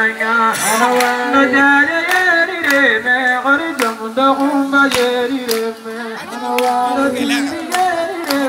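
A solo voice singing into a microphone, holding long, steady notes that step up and down like a chant. Sharp hits sound about once a second.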